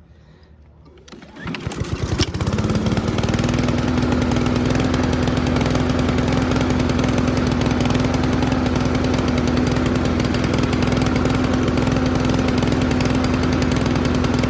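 Honda HRR2169VKA lawn mower's single-cylinder four-stroke engine starting about a second in, catching quickly and settling into a steady, even run. This is a test run on a freshly fitted spark plug.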